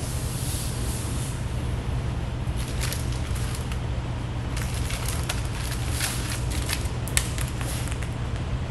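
Vinyl wrap film being rubbed and pressed down by hand onto a car's door panel: short scratchy, crackling rubs in clusters from about three seconds in, over a steady low hum.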